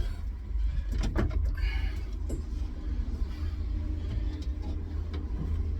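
A few sharp metallic clicks and knocks from hand tools and bolts during a harness-bar install, over a steady low rumble.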